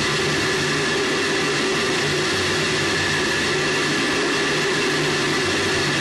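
Onboard booster-microphone sound from a spent Space Shuttle solid rocket booster falling back after separation: a steady, even rushing noise with a low hum beneath it.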